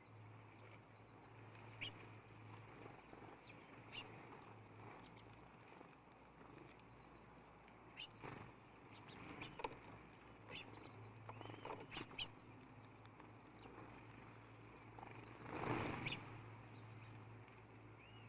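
Small birds at a feeder, faint: scattered light clicks and taps, a couple of brief chirps, and one louder short rustle about three-quarters of the way through, over a low steady hum.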